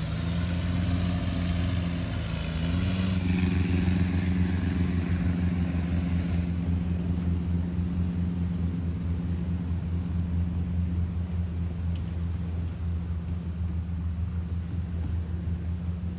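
Longtail boat engine running steadily with a low, pulsing rumble; its pitch rises a little about three seconds in, then holds.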